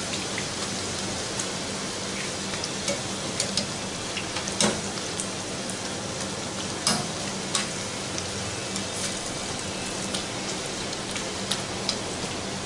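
Small zeera papri dough rounds deep-frying in hot ghee in a steel karahi on their first fry: a steady sizzle, with a wire skimmer stirring them and scattered sharp clicks, the loudest about four and a half and seven seconds in.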